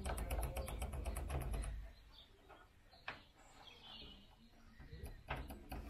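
A small hand saw cutting the door's metal window channel to length, in quick back-and-forth strokes of about seven a second. The sawing stops about two seconds in, and a few light clicks and a faint bird chirp follow.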